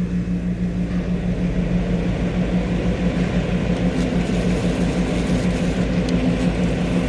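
Fandis FF12A230UN AC cooling fan running on 220 V mains just after being switched on: a steady electrical hum with a rush of air that builds over the first couple of seconds as it comes up to speed, and a second, higher hum tone joining about three seconds in.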